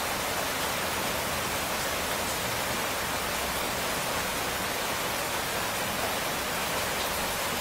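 Steady rain falling: an even hiss that holds at one level throughout.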